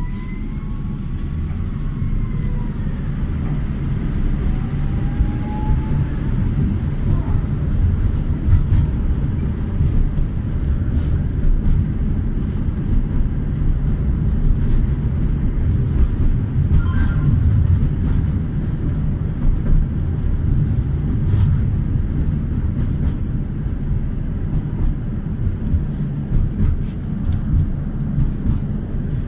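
Tatra tram running along the track, heard from inside the car: a steady low rumble of motors and wheels that builds over the first few seconds as it picks up speed, with occasional clicks and knocks. A siren wails faintly over the first few seconds.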